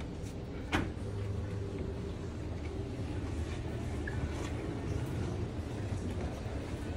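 Quiet footsteps and shuffling of a group walking down a hard-floored corridor over a steady low hum, with one sharp knock under a second in.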